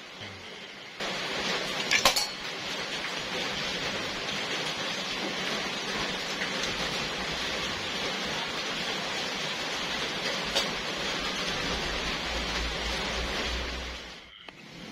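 A homemade rubber-powered spear gun is shot: a sharp metallic clink about two seconds in as the spear strikes a metal drink can, over a steady hiss. A second, fainter click comes near the end.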